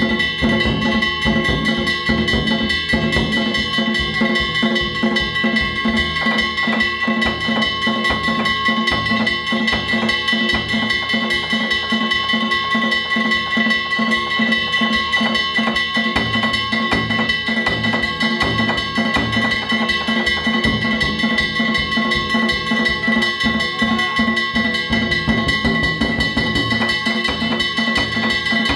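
Danjiri hayashi: taiko drums beaten in a fast, unbroken rhythm, with small brass hand gongs (kane) clanging and ringing over them.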